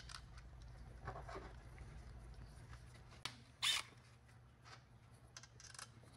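Small metallic clicks and clinks of bolts being set by hand into the pinion retainer on an aluminium transmission case, with one louder, brief noise a little past halfway, over a steady low hum.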